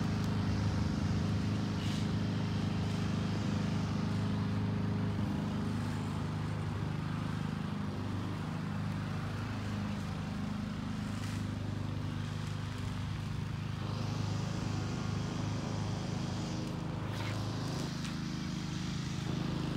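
Box truck engine idling, a steady low hum.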